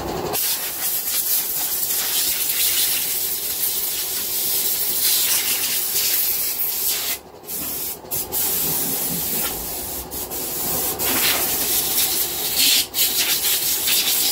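Compressed-air blow gun blasting dust and cobwebs off the finned cylinder head of a BSA stationary engine. It is a loud, steady hiss that is cut off briefly several times as the trigger is let go.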